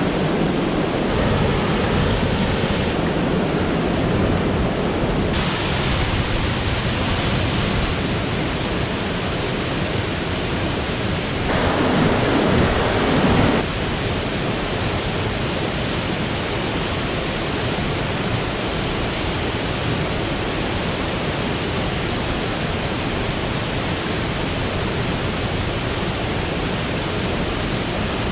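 Steady rush of falling water from Mae Yen Waterfall. It changes in tone abruptly a few times, and there is a louder, deeper stretch about twelve seconds in that lasts around two seconds.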